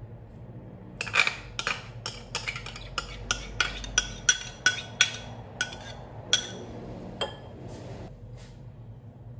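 A quick run of about fifteen sharp glassy clinks, two or three a second, as a glass jar of mayonnaise is knocked against metal and glass to shake its contents into a glass mixing bowl. The clinks stop about seven seconds in.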